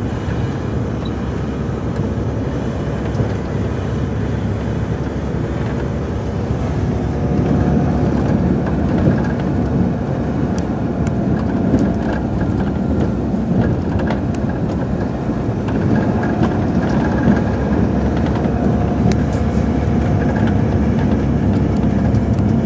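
Volvo FH 440 plow truck's 13-litre six-cylinder diesel running steadily under load, heard from inside the cab, together with the rushing of the front plow and side wing pushing snow. The noise gets louder about seven seconds in and stays louder.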